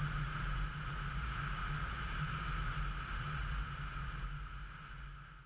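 Motorcycle riding at speed, heard from a bike-mounted camera: a steady engine drone with wind rushing over the microphone, fading out near the end.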